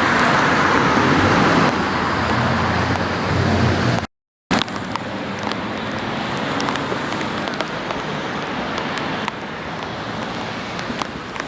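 Road traffic noise in heavy rain, a steady rushing hiss with a low rumble under it, cut off abruptly about four seconds in. After a half-second gap a quieter rain hiss follows, dotted with scattered sharp ticks.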